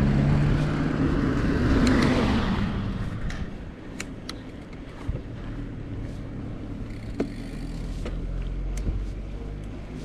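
A motor vehicle engine hums and goes by, its sound swelling about two seconds in and fading soon after, followed by a quieter stretch with a few faint clicks.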